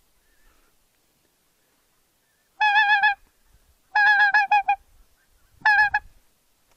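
Goose honking calls in three bouts, the middle one a quick run of pulsed honks, each with a wavering tone.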